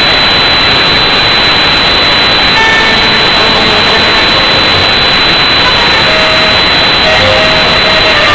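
A loud, steady, distorted hiss-like roar from a badly overloaded recording of live tango music. Only a few faint musical tones show through it.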